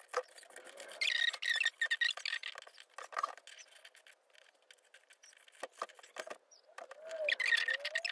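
Fabric scissors cutting through a double layer of hemp cotton fleece: two runs of rapid snips, one about a second in and another near the end, with a thin high squeak running under them and scattered single snips between.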